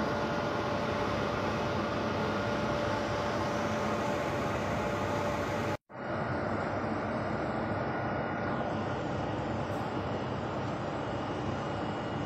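Steady mechanical running noise of a rubber conveyor belt travelling over its idler rollers, with a faint steady hum in it. The sound cuts out for an instant about halfway through, then carries on unchanged.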